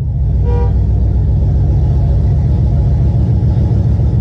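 LS1 V8 engine swapped into a third-generation Camaro, idling steadily in park with a low rumble.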